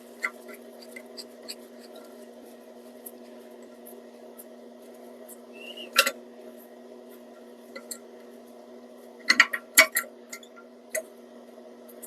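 Scattered small clicks and knocks from a plastic nut and a zinc-alloy toilet flush lever being hand-tightened against a ceramic toilet tank, with a few sharper knocks about six seconds in and again near ten seconds. A steady low hum runs underneath.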